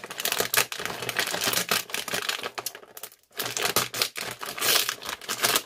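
Foil-lined snack bag crinkling and rustling as it is opened and handled, a dense run of crackles with a short break about three seconds in.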